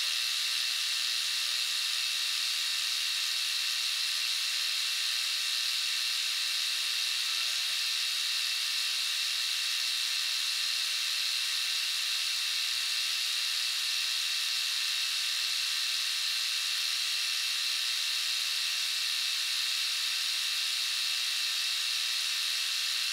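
Milling machine running steadily while an end mill takes a very light side cut along the back edge of cast steam-engine slide caps: a loud, even, high-pitched hiss and whine with no change throughout.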